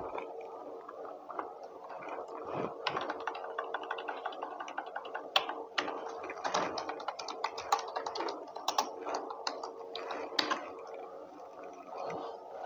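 Typing on an external computer keyboard: irregular key clicks in quick runs, thickest through the middle, over a faint steady hum.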